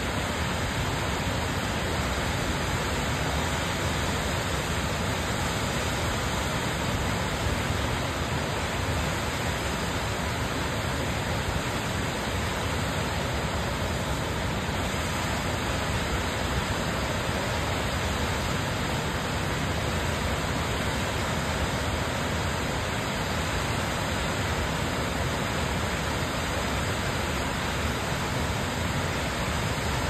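Cascading waterfall tumbling down a rocky gorge: a steady, even rush of falling water.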